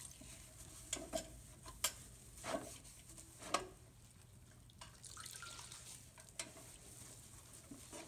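Quiet wet cleaning sounds: water dripping and splashing in a plastic basin as a wet sponge is worked over a metal bird feeder, with several short light knocks and clicks as the feeder is handled.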